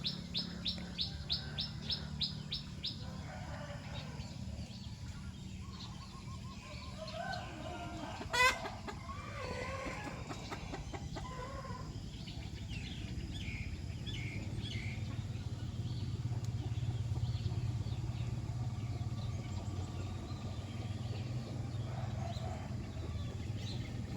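Birds and chickens calling outdoors. A small bird gives a fast run of high chirps, about five a second, for the first few seconds. Scattered chicken clucks and calls follow, with one short loud call about eight seconds in, over a steady low hum.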